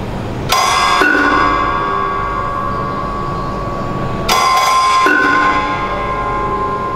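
Metal objects of a sound installation struck twice, about four seconds apart, each time ringing like a bell with several tones that fade slowly. A steady low hum runs underneath.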